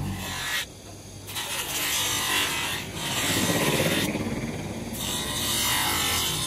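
Bench motor spinning an abrasive disc that grinds the edge of a clear plastic tail light lens, a harsh continuous rasping. It eases off briefly about a second in as the plastic is lifted, then comes back under pressure.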